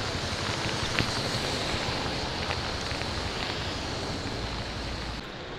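Steady hiss of rain with wind buffeting the microphone in a low, gusty rumble; a single sharp click about a second in, and the hiss drops abruptly near the end.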